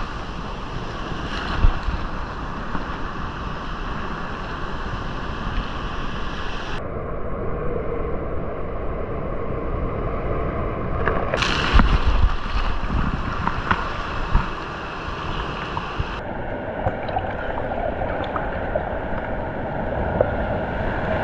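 Sea surf washing in over a rocky, pebbly shore, heard close up at the water's edge: a steady wash and hiss of foam, with one louder wave crash a little past halfway.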